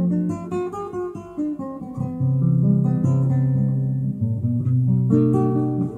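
Background music on acoustic guitar, plucked and strummed notes.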